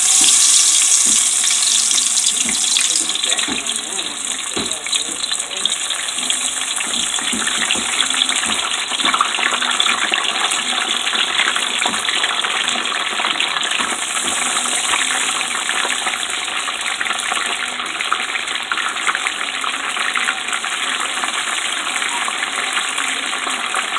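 Battered crab legs hitting hot oil in a deep pot and deep-frying: a loud sizzle that starts suddenly with the drop, strongest for the first few seconds, then settles into a steady sizzle.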